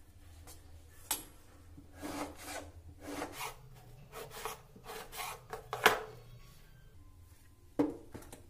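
Knife cutting through a brinjal (eggplant) on a wooden chopping board: repeated scraping strokes with a few sharp knocks of the blade on the board, the loudest about six seconds in.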